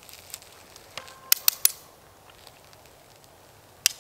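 Sharp clicks of a hand-cranked come-along's ratchet as it tightens the rope on a tent stake in frozen ground: a quick run of three about a second in, and one more near the end.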